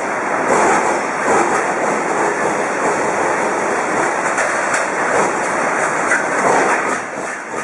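Loud, continuous rumbling and rattling of a large building shaking in an earthquake, easing slightly near the end.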